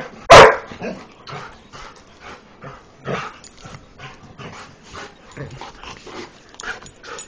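A dog barks once loudly right at the start, followed by softer short sounds repeating about three times a second.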